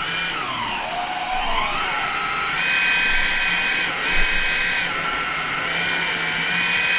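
Hydraulic pump of a 1/14-scale Liebherr 956 RC excavator whining as the machine is worked. Its pitch drops and rises over the first couple of seconds, then holds steady with a brief dip about four seconds in.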